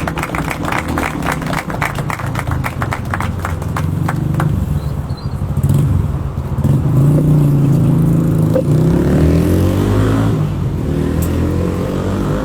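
Hand clapping for the first four seconds or so, over the low drone of a motor vehicle's engine. The engine then grows louder and revs, its pitch rising and falling, as the vehicle passes.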